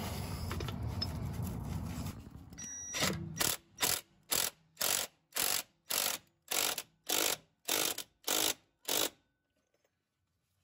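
Hand ratchet clicking in short bursts about twice a second, starting about three seconds in, as the 1¼-inch nut on the transfer case output flange is run down.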